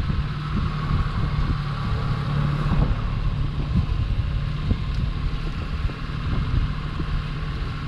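Glass-bottom boat's engine running with a steady low drone.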